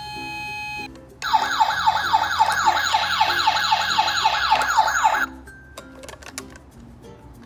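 Electronic ambulance siren: a held tone that breaks off, then a fast yelping sweep that repeats about four times a second for about four seconds and stops, over background music.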